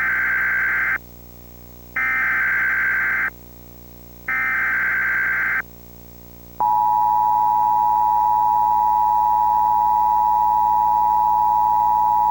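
Emergency Alert System tones from a Comcast cable alert. First come three bursts of the warbling SAME digital data header, each a little over a second long with a short pause between. About six and a half seconds in, the steady two-tone EAS attention signal starts and holds, announcing a severe thunderstorm warning.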